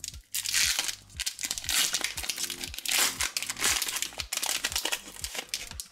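Foil Pokémon TCG booster pack wrapper crinkling in repeated spells as it is torn open and the cards are pulled out of it.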